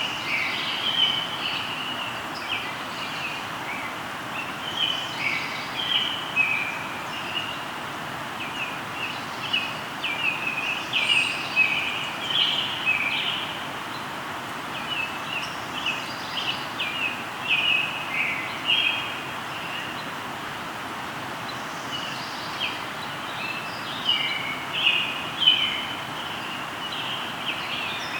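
Birds singing, a dense run of short chirps and trills that comes and goes, over the steady rush of a flowing river.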